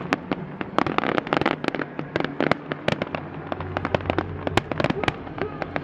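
Fireworks going off in quick, irregular succession: many sharp bangs and pops, several a second, with crackle between them.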